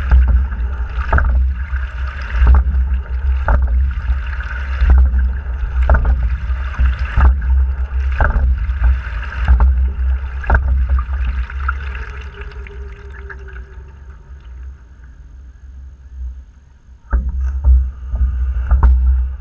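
Fluidesign single scull under way: water rushing along the hull over a low rumble, with a sharp knock from the oars in their gates about every second, twice each stroke. The knocks and rumble fade for a few seconds as the boat runs on, then come back strongly near the end.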